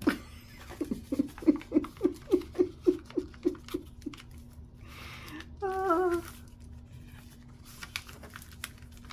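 A woman's soft closed-mouth chuckle: about a dozen short pulses at roughly four a second, fading out, followed about six seconds in by a brief voiced 'hmm'. A short paper rustle comes just before the 'hmm'.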